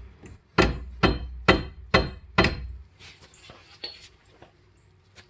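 Rubber mallet tapping a brake pad retaining pin into a 6-piston Brembo caliper: five sharp blows about half a second apart, stopping about two and a half seconds in, followed by a few faint small clicks.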